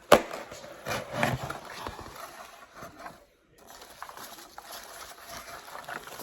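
Mail package being handled and opened: a sharp knock at the start, then rustling and scraping of packaging, with a brief break a little over halfway.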